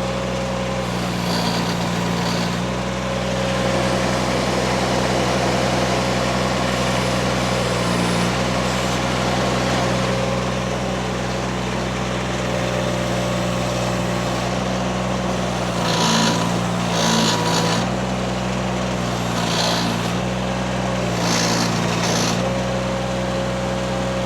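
Mini skid steer engine running steadily. Its note dips and shifts briefly several times, most clearly between about 16 and 22 seconds in, each time with a short burst of higher-pitched noise.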